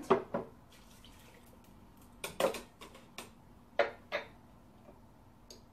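Glassware and bottles clinking and knocking on a tabletop while a cocktail is mixed: a handful of separate knocks, the loudest about two and a half seconds in and two more close together around four seconds in.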